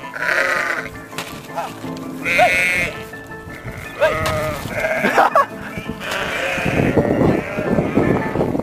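An animal bleating several times in a row, with pitched calls about a second or two apart, over background music.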